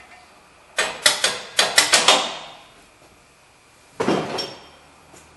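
A hammer taps a new upper ball joint down into the steering knuckle, seating it so the pinch bolt can pass through the knuckle's slot. There is a quick run of about eight sharp metal strikes, then two or three more about four seconds in.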